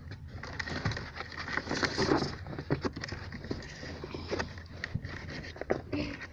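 Irregular rustling, scraping and small knocks as loose camera wiring is handled and dragged over carpet.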